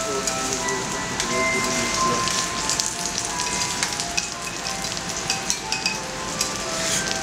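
Kobe beef sizzling on a teppanyaki iron griddle, a steady crackle with many sharp ticks, and light clicks of the chef's metal spatula and knife on the plate.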